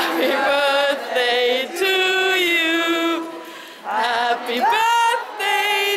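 Unaccompanied singing: a slow tune sung in long held notes, with short breaks between phrases.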